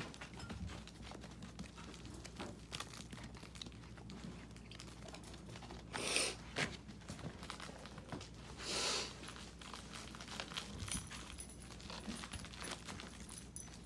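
Miniature pinscher puppies scuffling about on crinkly puppy pads: many small taps and scrapes of paws, with two short, louder rustles about six and nine seconds in.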